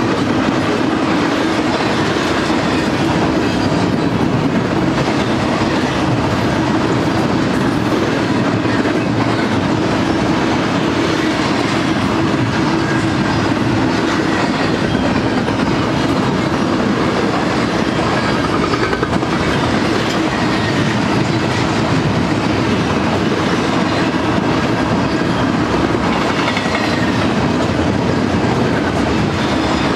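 Double-stack intermodal container train rolling past at speed: a steady loud rumble and clatter of the well cars' wheels on the rails.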